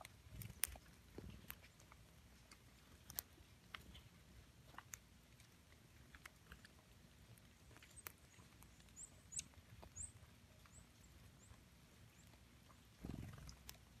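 Faint, scattered light ticks and rustles of small birds foraging on the ground in dry leaf litter, with a few brief high chip calls from small birds near the middle. A short low rumble comes near the end.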